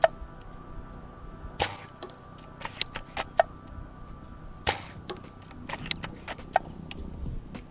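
Snow Wolf SW04 spring bolt-action airsoft sniper rifle being fired: two sharp shots about three seconds apart, with smaller clicks between them as the bolt is worked.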